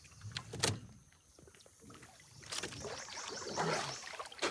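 Water sloshing and splashing around a man wading chest-deep in a bayou, reaching under the surface for a catfish, building up over the second half; a single sharp knock about half a second in.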